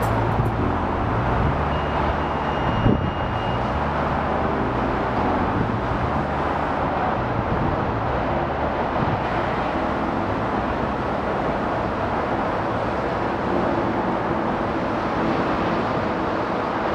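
Diesel engines of Hitachi Zaxis tracked excavators running steadily while they work demolition debris, the low drone rising and falling, with a single knock of debris about three seconds in.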